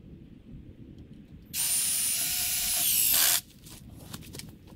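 Power drill running for just under two seconds, driving a bolt into the log end to fasten a chainsaw-mill bracket. Its high whine steps up in pitch partway through and drops as it stops.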